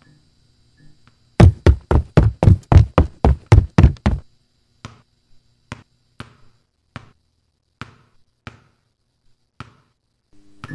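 A quick run of about eleven loud knocks, roughly four a second, comes first. Then a ball bounces on a tiled floor in softer single bounces, about one every two-thirds of a second.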